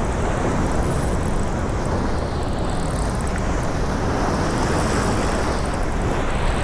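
Steady rushing of strong wind on the microphone, mixed with waves washing on the shore.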